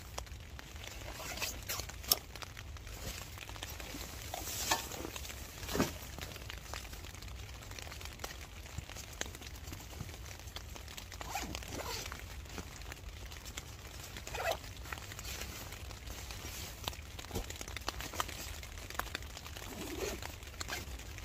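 Nylon stuff sacks and a rucksack being handled and packed: rustling and crinkling fabric with scattered soft knocks, over a low steady rumble.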